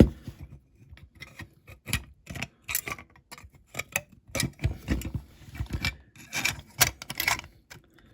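Plastic interior of a diecast Dinky Toys Ford Transit van being worked loose from its metal body: irregular clicks, knocks and short scrapes as the stubborn part is wiggled and pried.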